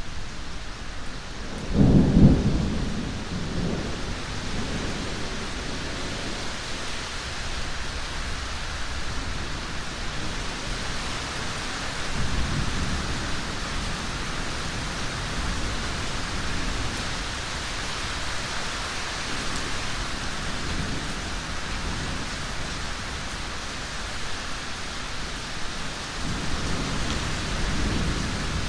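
Steady rain with thunder rumbling. The loudest peal comes about two seconds in and rolls off over a few seconds, with fainter rumbles in the middle and near the end.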